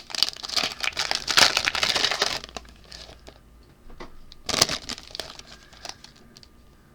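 Wrapper of a 2023 Mosaic Football trading-card pack crinkling and tearing as it is ripped open, densest over the first two and a half seconds, with another short crinkle about four and a half seconds in and a few small rustles after.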